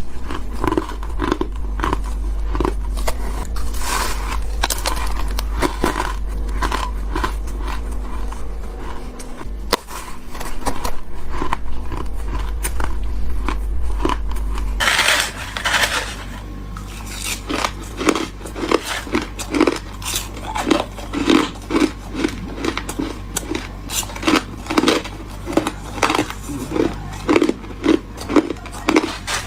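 Close-up biting and chewing of freezer frost: squeaky, crunchy ice crunches repeated throughout, with one louder crunch about halfway and a steady chewing rhythm in the second half. A low hum runs under the first half.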